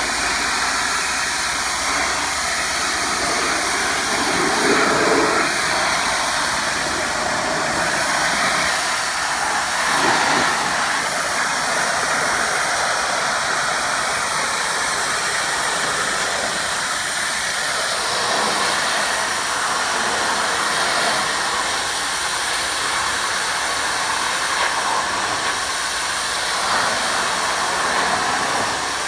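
Pressure washer spraying a patio surface: a steady, loud hiss of high-pressure water, swelling slightly a couple of times.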